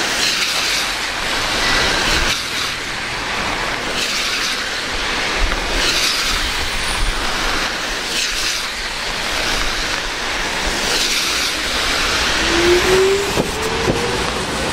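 Ichibata Electric Railway 2100 series electric train pulling out of the station: a steady hiss and running noise, then a rising motor whine about twelve seconds in as it gathers speed, with wheels clicking over rail joints near the end.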